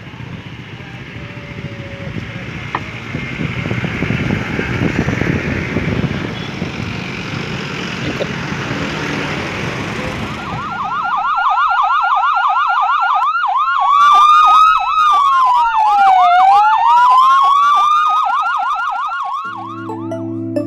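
Vehicles passing with engine and tyre noise, then about halfway through emergency-vehicle electronic sirens start with a fast yelp. A slower wailing tone joins the yelp, rising, falling and rising again. Music begins near the end.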